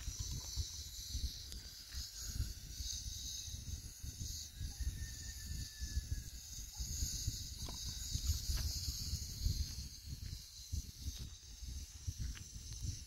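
Outdoor wind rumbling and buffeting on the microphone, with a steady high hiss over it and a few faint clicks.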